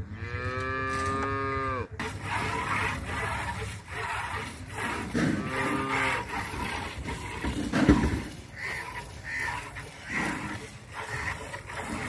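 Cattle mooing: one long moo in the first two seconds and a shorter one about five seconds in. There is a thump near eight seconds.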